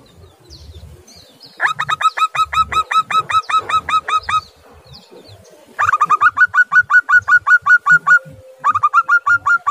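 Zebra dove (perkutut) calling in three rapid runs of short, clipped notes, about seven a second. The first run starts a little over a second and a half in; the second and third come after short pauses.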